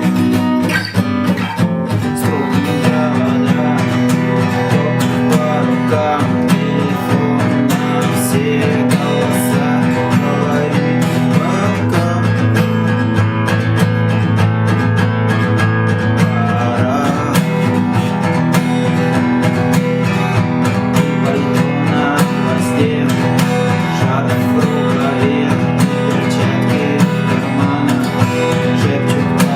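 Acoustic guitar strummed in a steady rhythm, with sharp percussive strokes between the chords: the muted 'knock' strum, played as a beginner's lesson exercise.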